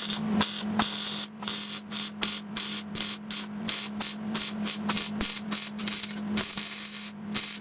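Welder arc crackling in short bursts, about three a second with a couple of longer runs, as a broken-off nut is welded back inside the van's lower frame.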